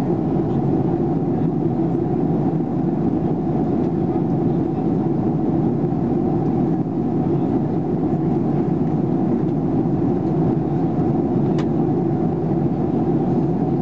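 Steady cabin noise inside a Boeing 737-800 climbing out after takeoff: an even, unbroken mix of CFM56-7B engine noise and airflow, deep and constant in level.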